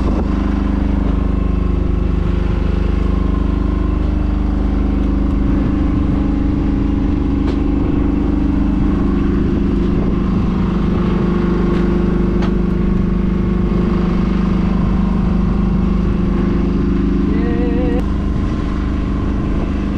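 Fishing boat's engine running steadily, a low hum with a few held tones that shift slightly now and then.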